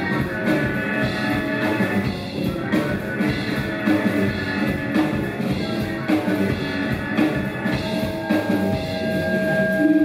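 Live rock band playing an instrumental stretch, with the drum kit keeping a steady beat under held notes. A new high held note comes in near the end.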